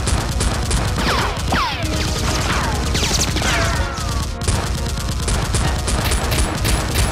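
Rapid gunfire sound effects dubbed over a Nerf blaster fight: continuous volleys of shots, with falling whistling whines between about one and four seconds in.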